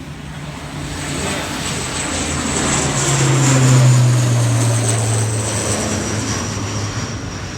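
Propeller airliner taking off and passing: a low engine drone with a high turbine whine, growing louder to a peak about four seconds in, then fading as its pitch sinks slightly.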